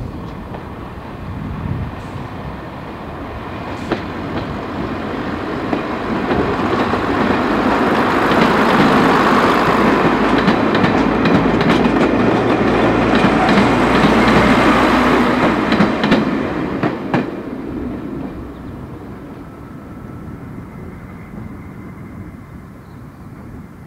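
Class 117 diesel multiple unit passing close by: its diesel engines and the clickety-clack of its wheels over the rail joints build up, stay loud for several seconds in the middle, then fade away as it goes.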